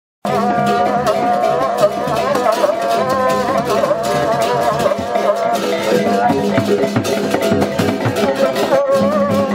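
Balinese procession gamelan (baleganjur) playing: rapid strikes of kendang drums and ceng-ceng cymbals under a wavering melody line. The music starts just after a brief break at the very beginning.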